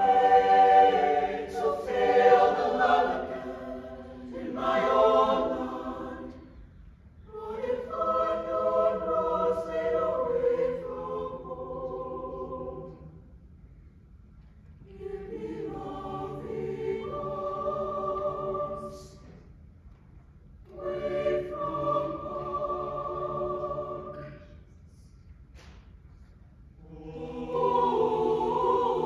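Mixed choir of women's and men's voices singing unaccompanied, in about five slow held phrases with short breaths and pauses between them.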